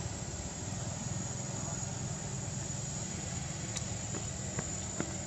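Steady outdoor background: a low rumble with a thin, steady high-pitched whine over it, and a few faint clicks in the last second and a half.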